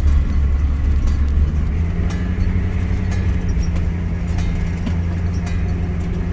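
Bus engine running as the bus drives slowly, heard from inside the cab, with a low steady drone whose note shifts about two seconds in. Scattered clicks and rattles from the bus's body and contents.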